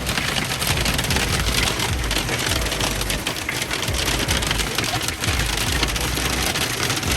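Hail drumming on the roof of a Winnebago Ekko camper van, heard from inside: a dense, steady clatter of countless small impacts, with a low rumble underneath.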